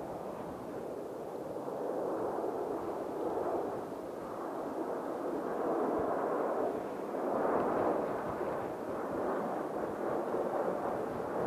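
Jet airliner's engines heard at an airport: a steady rushing noise that grows gradually louder in uneven swells.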